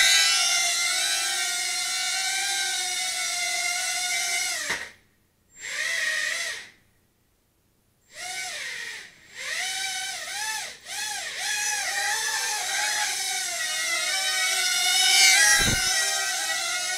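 Hubsan H107D micro quadcopter's four small coreless motors and propellers whining, the pitch wobbling up and down with the throttle. The whine cuts out about five seconds in, returns briefly, stops for about two seconds, then spins back up, and is loudest about fifteen seconds in as the quad flies close.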